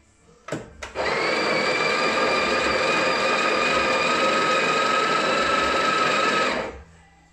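Sage Barista Pro's built-in conical burr grinder grinding coffee into the portafilter: two sharp clicks, then a steady, loud whirring grind for about six seconds that stops abruptly near the end.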